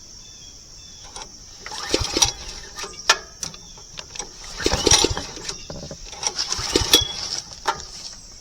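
Irregular knocks, thuds and clinks, starting about two seconds in and going on, over a steady high chirring of insects.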